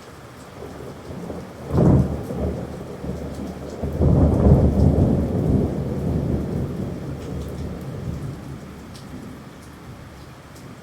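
Steady rain with a thunderclap: a sharp crack about two seconds in, then a long low rumble that swells a couple of seconds later and slowly dies away.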